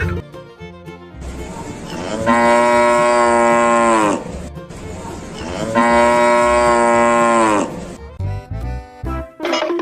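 Cow mooing: two long calls about a second and a half apart, each held about two seconds and dropping in pitch as it ends.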